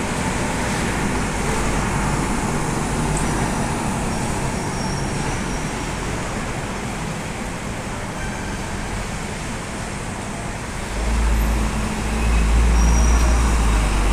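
Street traffic noise with double-decker buses running. About eleven seconds in, an Alexander Dennis Enviro500 MMC double-decker bus drives past close, and its deep engine sound grows loud.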